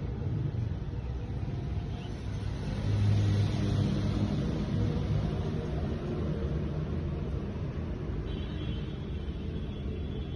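A low, steady rumble that swells about three seconds in.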